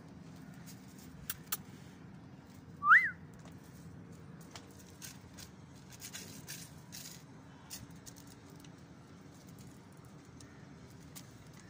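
A single short whistle that rises and then falls in pitch, about three seconds in, over faint rustling and a few light clicks.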